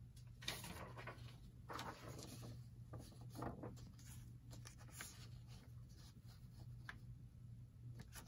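Faint rustling and scraping of paper and card being handled and slid across a cutting mat, a few soft brushes spread through, over a low steady hum.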